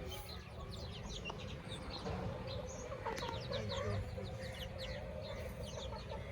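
Chickens clucking, with many short, high chirps scattered throughout.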